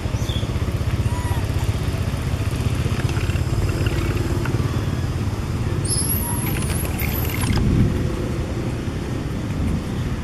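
A steady low rumble, like a motor vehicle's engine running nearby. About six seconds in, a thin, very high-pitched squeal wavers for about a second and a half.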